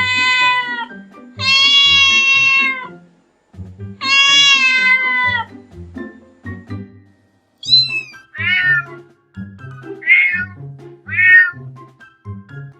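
Cats meowing over background music: three long, drawn-out meows, the first already under way, then four short, higher-pitched meows about a second apart in the second half.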